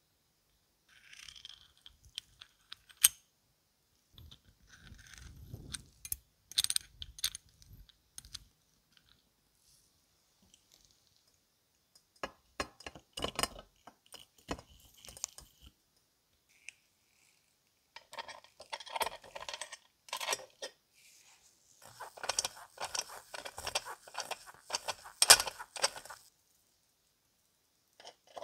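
Small metal and ceramic parts of an electric hotplate being handled and fitted: brass screws and nuts clicking and clinking against ceramic terminal insulators and the painted steel housing, with scraping and rubbing. It comes in several separate bursts of clicks and rattles with quiet gaps between, a sharp click about three seconds in.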